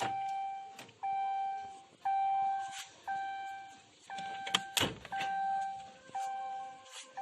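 A single-note electronic chime repeating about once a second, each ring fading away before the next, with a few sharp knocks around the middle.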